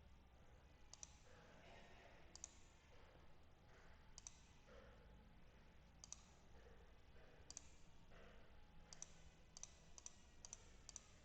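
Faint, sharp clicks of a computer mouse being clicked about a dozen times at an uneven pace, coming quicker near the end, over faint room hiss.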